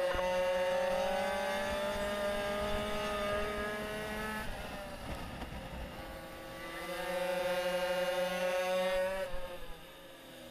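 Small two-stroke 40 cc racing minibike engine at high revs under throttle. Its high note climbs slowly, drops for about two seconds in the middle as it backs off, climbs again, then falls away and quietens near the end.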